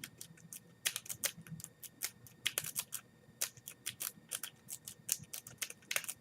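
Southord L rake jiggled in the keyway of a cheap Biltema pin-tumbler padlock under tension, rattling the pins: quick irregular metallic clicks, a few per second.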